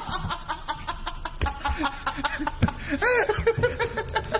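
A person laughing off camera in rapid short bursts, with a louder whooping note about three seconds in.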